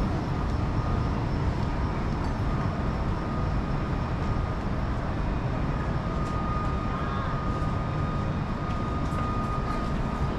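Steady low rumble of city background noise, with a faint steady high whine joining a couple of seconds in.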